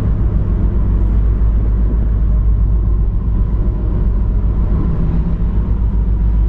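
Steady low rumble and hum on a moored cruise ship's open top deck, with a faint steady whine above it.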